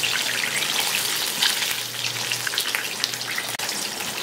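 Batter-coated chicken legs deep-frying in hot oil, a steady hiss with a dense crackle of popping bubbles. The oil is still bubbling hard; this must settle before the chicken is done.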